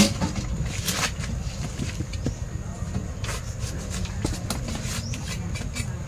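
Scattered sharp clicks and knocks of knives trimming the stems of harvested jackfruit and of the fruit being handled, at irregular intervals over a steady low rumble.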